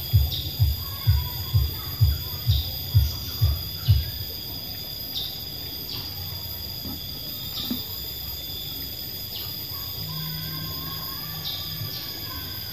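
Steady high-pitched insect chirring with occasional short ticks, under a low rhythmic thudding at about two beats a second that stops about four seconds in.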